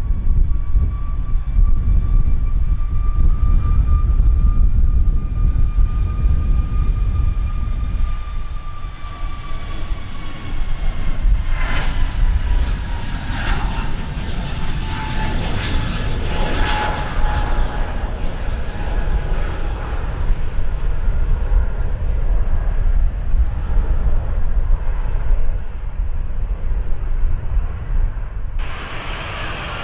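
Jet airliner's turbofan engines passing close by: a deep rumble under a high whine that falls in pitch as the aircraft goes past. Near the end the sound abruptly changes to a broader hiss.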